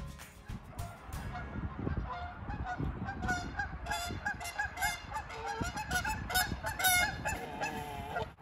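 Canada geese honking over and over, a quick run of short calls that starts about a second and a half in.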